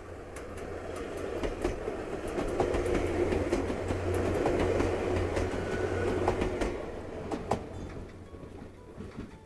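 A Chichibu Railway electric train passes close by on the tracks, with repeated sharp clicks from its wheels on the rails. The noise builds to a peak around the middle and then fades as the train moves away.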